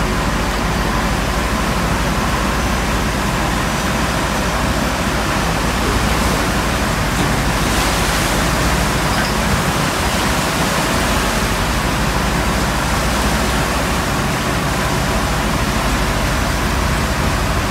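Seawater rushing and splashing across the deck of a small tanker as waves break over it, a steady rushing noise that swells around six to eight seconds in.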